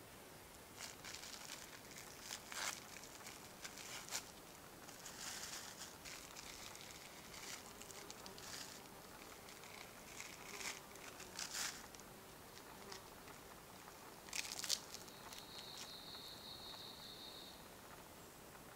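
Faint, scattered rustling and crinkling of gear being handled, with a sharper crackle about two-thirds of the way through. Near the end a steady high-pitched buzz lasts a couple of seconds.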